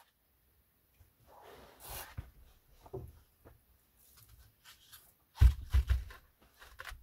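Footsteps and a jacket rustling, then a heavy wooden plank door pulled shut with a few loud low thumps a little past halfway.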